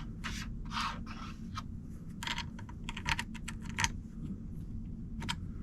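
Irregular small metal clicks and light scrapes of a wrench working the collet nut on a Dremel Flex-Shaft attachment as it is tightened.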